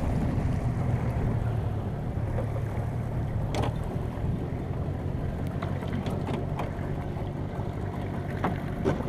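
Small boat's motor running steadily at low speed, a low even hum, with a few light knocks partway through and near the end.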